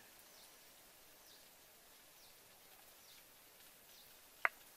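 Faint outdoor ambience with a bird repeating a short, high, falling chirp about once a second. A single sharp click stands out near the end.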